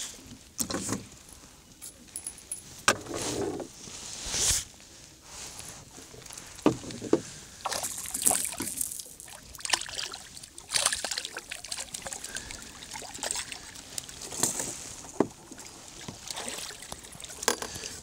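A small herring splashing and thrashing at the water's surface as it is reeled in and scooped into a landing net, with knocks and clicks of tackle and net against the boat.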